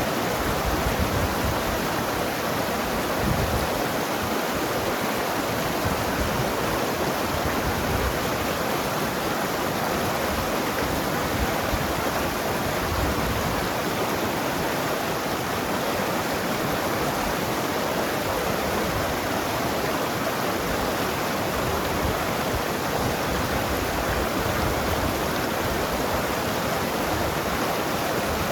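Mountain river rushing and gurgling over rocks, a steady, unbroken flow of water.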